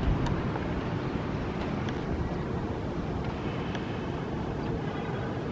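Steady low rumble of wind on the microphone over distant city and airport noise, with a few faint clicks.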